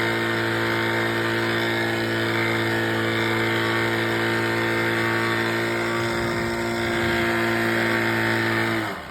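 Old 35 hp Evinrude two-stroke outboard motor running steadily at full throttle on a test run after a leaking exhaust gasket was replaced. Near the end it is throttled back sharply and the note drops away toward idle.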